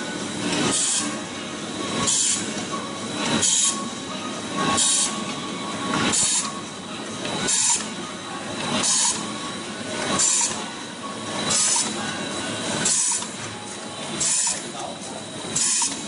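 Automatic soft-tube screen printing machine running through its cycles, with a short hiss repeating evenly about every second and a half over a steady mechanical running noise.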